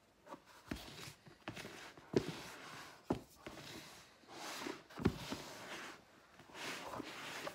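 Wooden spoon stirring stiff bread dough in a large flexible plastic bowl: irregular soft thumps and knocks about once or twice a second, with scraping swishes between them as the last flour on the bottom and sides is worked into the dough.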